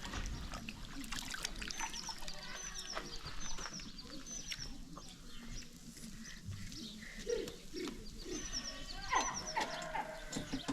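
Outdoor rural ambience: small birds chirping in short high calls repeated in little groups, with a few lower animal calls.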